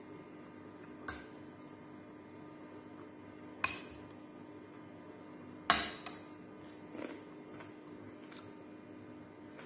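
Metal spoon clinking against a glass bowl: a handful of sharp clinks, the two loudest about three and a half and five and a half seconds in, over a faint steady hum.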